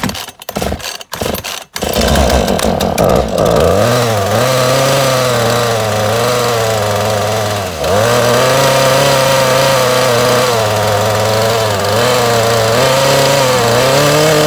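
Husqvarna 435 two-stroke chainsaw pull-started from cold on choke: a few short pulls on the starter cord, then the engine catches about two seconds in and keeps running. Its speed wavers and sags once near the middle before picking back up.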